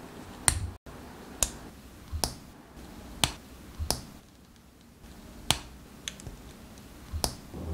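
Plastic parts of an HG 1/144 Gundam Hajiroboshi model kit being pressed together by hand, snapping into place with a series of sharp plastic clicks at irregular intervals, roughly one a second.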